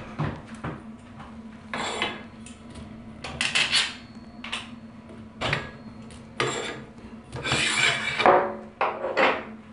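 Shower curtain rings being slid onto the end of a curved metal shower rod: repeated metallic scrapes and clinks, with a longer scrape about eight seconds in.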